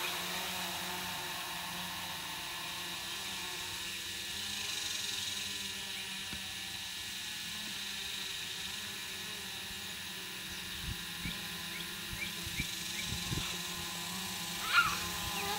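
Small quadcopter drone flying, its propellers giving a steady multi-tone whine that is a little louder at the start. Near the end there is one short, sharp high chirp.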